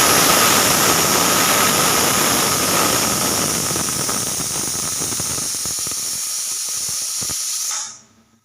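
Pressure cooker whistle: steam forcing up the weight valve in a loud, shrill, hissing whistle with a steady high tone. It turns spluttery in its last few seconds and cuts off about eight seconds in.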